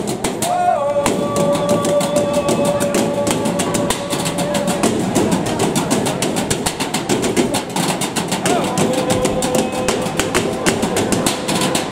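Several drummers beating galvanized metal trash cans with drumsticks in a fast, steady rhythm of sharp metallic hits.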